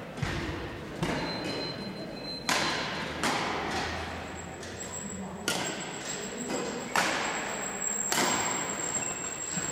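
Badminton rackets striking shuttlecocks in a drill of attacking shots: about seven sharp hits at irregular intervals, each followed by a short echo off the hall's walls.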